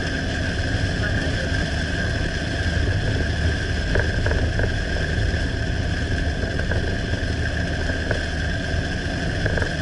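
Steady road and engine noise of a vehicle driving along a highway, an even low rumble with a constant higher hum.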